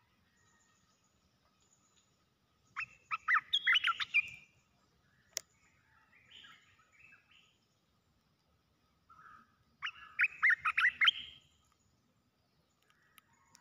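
Olive-winged bulbul singing: two short, loud, bubbling song phrases about three and ten seconds in, with softer calls between them. A single sharp click about five seconds in.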